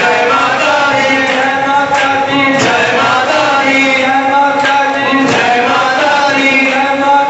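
Hindu devotional song: voices chanting a bhajan over a steady held note and instrumental backing.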